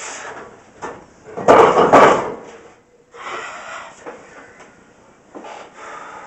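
Two loud metallic clanks about half a second apart, from a loaded barbell and its iron plates knocking against the rack, with smaller knocks and shuffling before and after.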